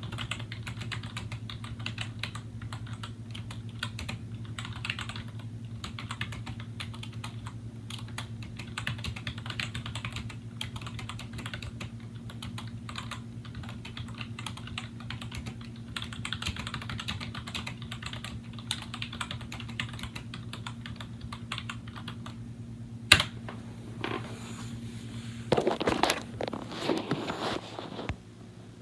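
Apple M7803 Pro Keyboard, with Mitsumi dome switches with integrated sliders, being typed on at a steady pace: fast, irregular key clicks. One sharp, loud key strike comes about two-thirds of the way in, and the clatter grows louder and fuller near the end.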